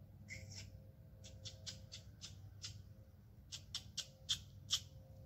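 A hunter's squirrel call: a series of short, sharp, high chirps in an uneven run, the loudest few near the end.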